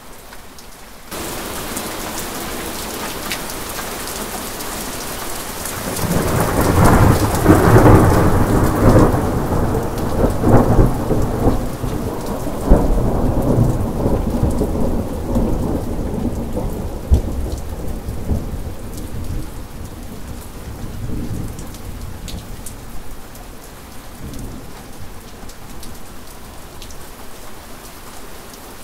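Heavy rain with a long roll of thunder. The rain grows suddenly louder about a second in; a few seconds later thunder rumbles in, with several sharp crashes, loudest in the first half, then slowly dies away while the rain keeps falling.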